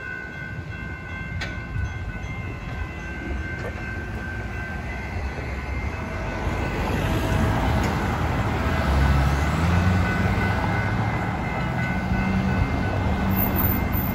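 San Diego Trolley light-rail train approaching a level crossing, its motor hum rising in pitch and growing louder from about halfway through. Over it, the crossing's warning bells ring steadily and road traffic passes.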